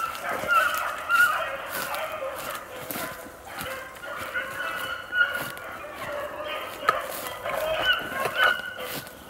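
A pack of young beagles baying as they run a rabbit, several voices overlapping and going on without a break.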